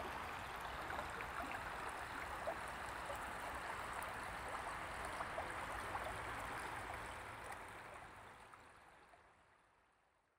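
Steady outdoor rushing noise, water-like, with faint scattered ticks, fading out about eight to nine seconds in.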